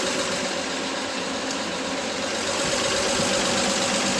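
Old Chevrolet's six-volt-era engine idling steadily. The idle is too slow for the charging system to keep up with the headlights on, so the battery is discharging.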